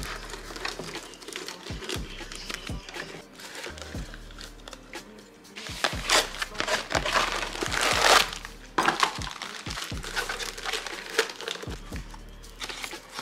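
Plastic storage bags and their cardboard boxes crinkling and rustling as they are handled and slotted into a drawer organizer, with a few light knocks against it. The crinkling is loudest from about six to eight seconds in.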